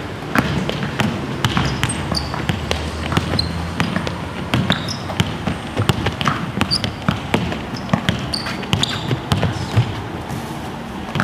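Basketballs being dribbled hard on a court: a run of sharp bounces, a few a second and unevenly spaced, with short high chirps among them.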